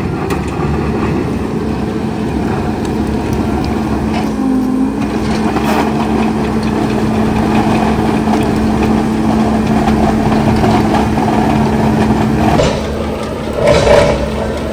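Skid steer running a CONETEKS 2.13M hydraulic grinding attachment on a stump: a steady machine drone with a steady hum that cuts out about two seconds before the end, followed by a louder, rougher burst of grinding.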